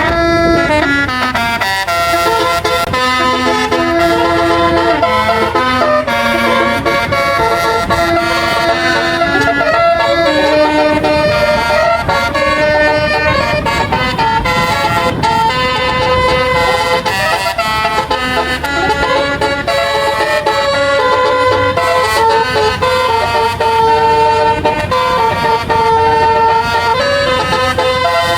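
A tour bus's basuri telolet horn playing a tune: a long run of loud, multi-tone horn notes that step from pitch to pitch every fraction of a second, with a low rumble of engine and street noise underneath.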